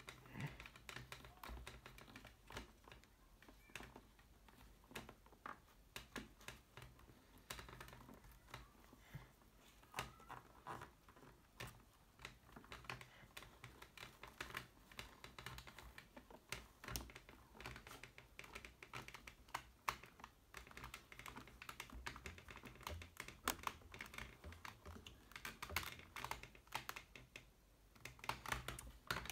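Hands working at a motorcycle helmet's padded liner and shell edge: faint, irregular small clicks, taps and scratches of fingers pressing and tucking parts in.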